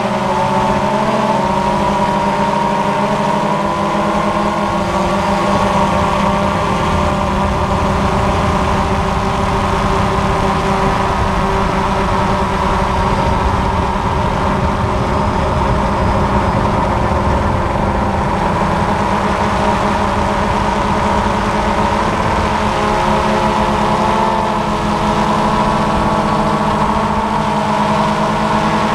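DJI Phantom FC40 quadcopter's four electric motors and propellers buzzing steadily in flight, heard up close from the camera on the drone itself. Several tones sit on top of each other and waver slightly in pitch as the motors adjust speed.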